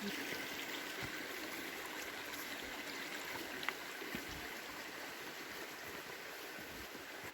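Mountain creek flowing: a steady rush of water that cuts off suddenly at the very end.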